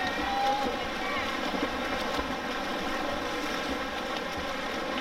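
Crowd noise at a water polo game: spectators talking and calling out over a steady wash of splashing from the pool.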